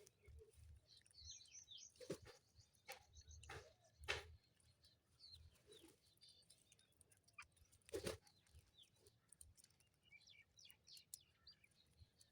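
Sparrows chirping in quick, high, scattered chirps, faintly, with a few sharp taps among them, the loudest about four and eight seconds in.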